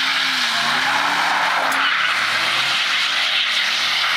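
V8 car's rear tyres spinning and squealing continuously through a smoky burnout while it circles in donuts. The engine note rises and falls over and over as the throttle is worked.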